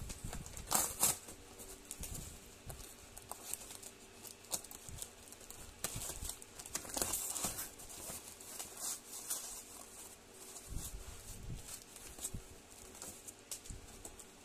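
Plastic wrapping and cardboard rustling and crinkling as a parcel is unwrapped by hand, with scattered taps and scrapes; the crinkling is thickest about halfway through.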